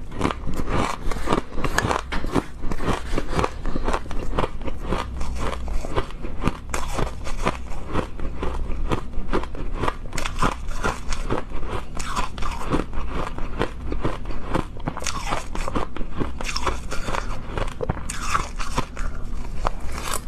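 Ice being bitten and chewed close to the microphone: a continuous run of crisp, irregular crunches.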